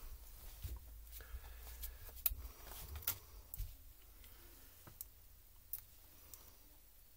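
Scattered light clicks and taps of hands handling a laptop's disassembled plastic and metal chassis parts, over a faint low hum.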